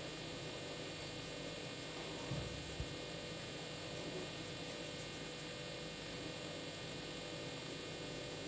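Steady electrical hum and hiss of background noise, with a brief low bump and a soft knock about two and a half seconds in.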